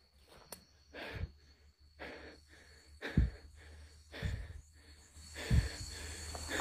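Soft, short rustling thuds about once a second: footsteps through grass and low undergrowth, heard close to a handheld phone.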